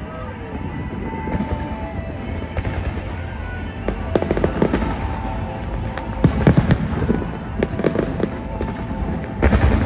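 Aerial fireworks bursting: a continuous low rumble with sharp bangs and crackle, the bursts coming thickest about four seconds in, again midway and near the end.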